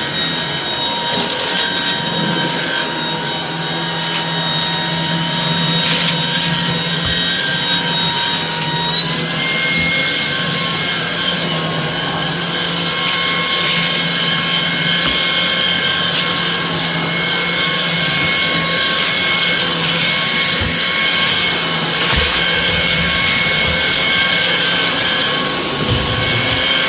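Shark DuoClean cordless stick vacuum running continuously with a steady rush of air. Its motor whine rises in pitch about nine seconds in, then holds at the higher pitch.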